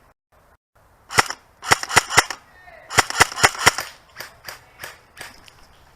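Airsoft guns firing in short volleys of sharp cracks, a rapid run of about five shots in the middle. Fainter single shots follow in the second half.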